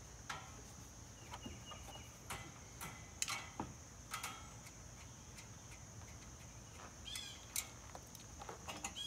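Scattered light clicks and metallic clinks of a nut driver and small metal parts as acorn nuts are taken off the blower housing of a Kawasaki small engine, at irregular intervals. Crickets chirp steadily in the background.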